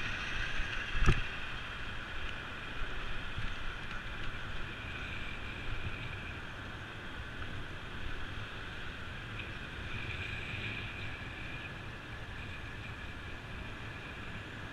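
Steady wind and road noise from a moving bicycle, with traffic in the background. A single sharp knock about a second in is the loudest sound.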